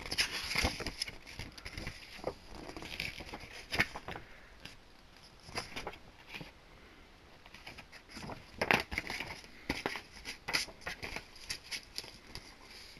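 DVD box-set packaging being handled: irregular rustling and sharp clicks, busiest a little past the middle.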